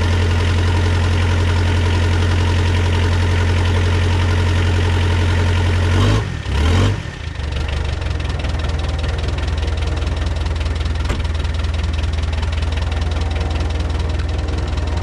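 Mitsubishi 4D55T 2.3-litre turbodiesel four-cylinder running cold just after start-up, knocking and misfiring a little because of air in the fuel lines from leaking injectors. About six seconds in the sound briefly surges and dips, then settles at a lower level.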